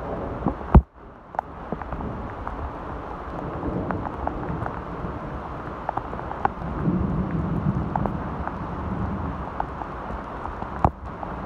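Steady rain falling in woodland: an even hiss with scattered sharp taps of drops, and one louder knock about a second in.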